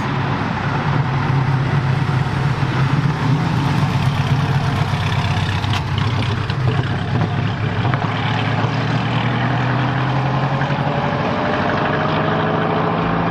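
A car engine running steadily at a low, even pitch, with a faint tone rising slowly in pitch in the second half.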